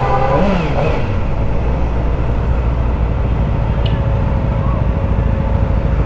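Kawasaki ZX-4RR's 399 cc inline-four, its revs falling in the first second as the bike slows, then idling steadily.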